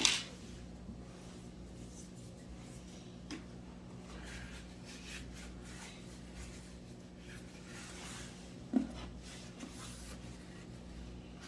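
Faint scratching and rubbing of small objects being handled, with a sharp click at the start and a light knock about nine seconds in, over a steady low hum.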